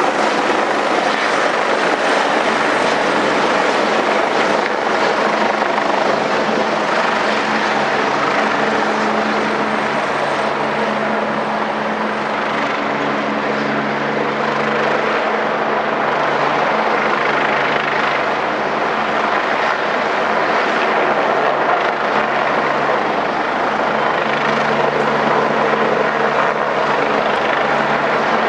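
Helicopter running steadily at close range, its turbine and rotor giving a loud continuous rush with a low steady hum.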